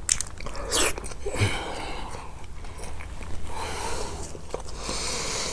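Close-miked eating: wet chewing and biting of food, with small sharp mouth clicks and smacks.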